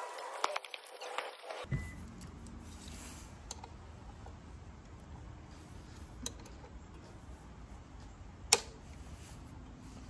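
Hands handling an e-bike frame and crank: a few light taps and clicks near the start and one sharp click about eight and a half seconds in, over a steady low rumble.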